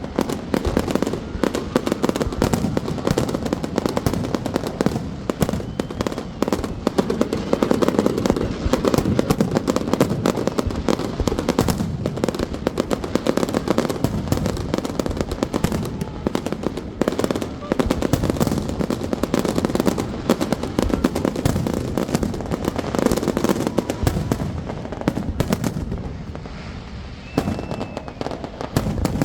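Fireworks display: a dense, unbroken run of rapid bangs and crackling, thinning out a little near the end.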